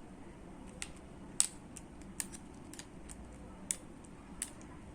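Small sharp clicks, about seven, irregularly spaced, from a spinning reel and its handle screw being turned and handled while the handle is fitted.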